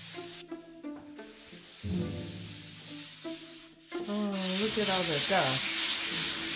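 Drywall joint compound being sanded by hand with a sanding block: scratchy back-and-forth rubbing strokes that start loud about four seconds in, after a stretch of soft background music.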